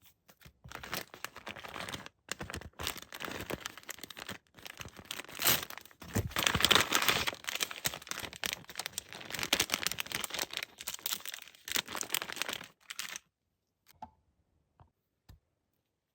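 Packaging being torn open and crinkled by hand: close, dense crackling and tearing that swells around six to seven seconds in and stops suddenly about thirteen seconds in. A few faint light taps follow.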